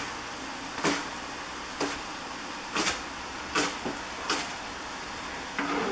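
Chef's knife chopping scallions on a plastic cutting board: single, unhurried chops about once a second.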